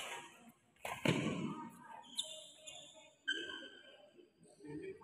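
Badminton rally: a racket strikes the shuttlecock at the start, and a louder smack about a second in echoes around the hall. Short squeaks follow later, typical of court shoes on the sports mat.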